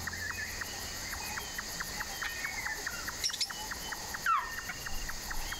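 Natural bush ambience: birds chirping and calling over a steady insect chorus, with an even ticking call about five times a second. About four seconds in, one louder call slides down in pitch.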